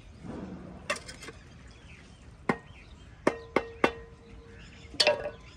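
Steel mason's trowel tapping a brick down to bed it in wet cement mortar: about six sharp taps, three in quick succession near the middle, several leaving a short metallic ring.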